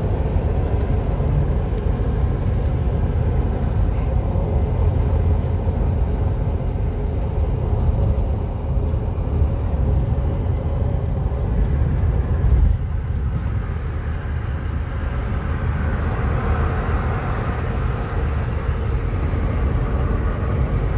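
Steady low road rumble inside a vehicle's cabin at highway speed: engine and tyre noise, with a brief louder bump about halfway through.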